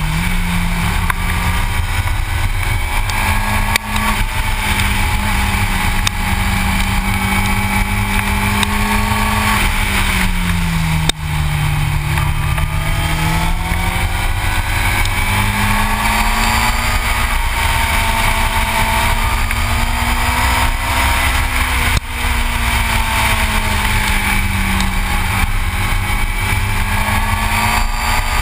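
Yamaha YZF-R6 sport bike's inline-four engine running at road speed, its pitch slowly rising and falling with the throttle through the bends, with a lower stretch about eleven seconds in. Heavy wind rush on the microphone lies under it, with brief dips in level about four, eleven and twenty-two seconds in.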